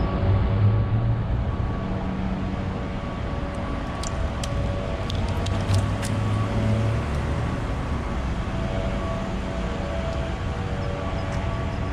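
Steady rumble of street traffic and running vehicle engines, with a few light sharp clicks about halfway through.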